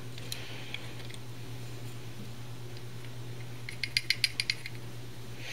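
A quick run of about seven light metallic clinks, packed into half a second about four seconds in, as the emptied brass cartridge case is pulled from the collet of a kinetic bullet puller. A steady low hum runs underneath.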